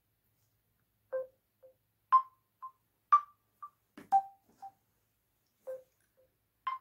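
Mobile phone ringtone for an incoming call: a melody of short single notes, about one a second at changing pitch, each followed by a fainter repeat half a second later.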